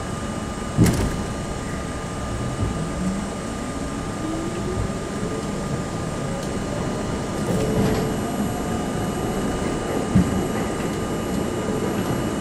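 New York City Subway train pulling out of a station, its traction motors whining and rising steadily in pitch as it accelerates, over a steady rumble of wheels on rail. A sharp knock comes about a second in and another near the end.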